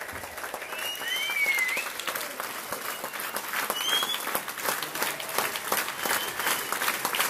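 Concert audience applauding after a song, a dense patter of clapping that builds toward the end, with a few whistles from the crowd.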